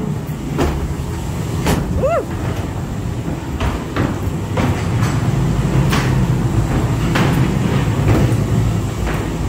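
A ghost-train car runs along its track with a steady low rumble and repeated clattering knocks, banging through the swing doors into the ride near the start. A brief rising-and-falling wail comes about two seconds in.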